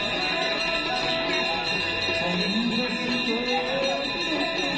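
Hindu devotional music for the Ganga arati: a sung chant over steady instrumental accompaniment, with a voice line coming in about two seconds in.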